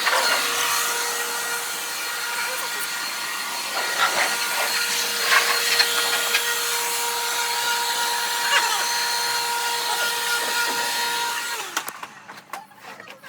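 A small electric motor with a rush of air, like a vacuum cleaner or blower, running steadily with a high whine, then switching off about a second and a half before the end.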